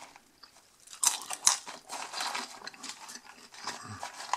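A person chewing McDonald's French fries close to the microphone, with crisp crunching bites starting about a second in.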